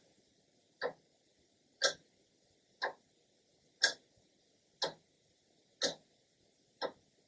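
Clock ticking as its second hand steps, about one tick a second, with louder and softer ticks alternating.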